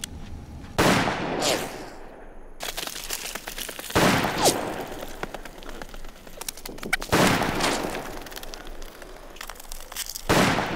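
Gunshots: seven loud bangs, mostly in pairs about half a second apart, each trailing off in a long echo.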